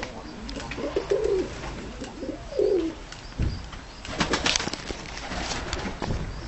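Dönek (Turkish tumbler) pigeons cooing in their loft, several rolling low calls in the first half. About four seconds in comes a quick run of sharp clattering clicks, with a few more just before the end.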